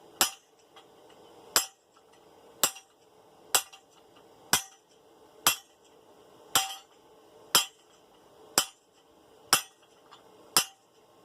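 Hand hammer striking a hot steel bar on an anvil, about eleven evenly spaced blows at roughly one per second, each with a short metallic ring. This is a blacksmith setting down a shoulder on 1/2-inch round bar, turning the bar between blows.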